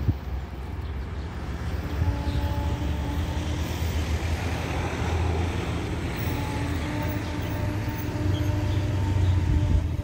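Alsthom diesel-electric locomotive running, a steady low engine drone with a few steady tones over it that come in about two seconds in and grow a little louder near the end.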